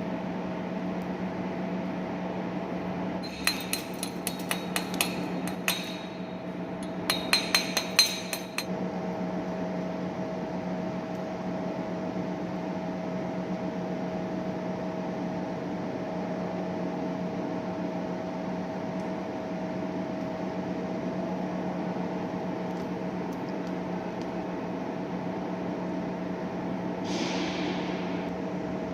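Steady machine hum, broken a few seconds in by two quick runs of sharp, ringing metal-on-metal taps; a short hiss comes near the end.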